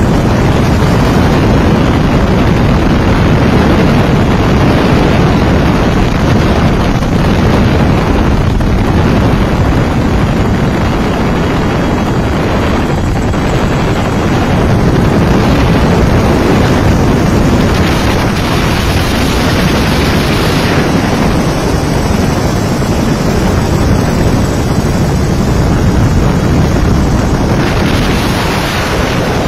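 Steady, loud rushing noise of an aircraft in flight, engine and wind heard from on board.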